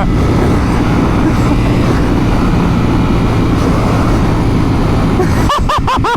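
Motorcycle engine running steadily while riding, with road and wind noise. Near the end a rapidly warbling, siren-like tone starts up over it.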